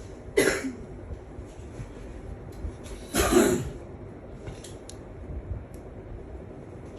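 A person coughing twice, once about half a second in and again, louder and longer, about three seconds in, over a steady low room hum, with a few faint clicks.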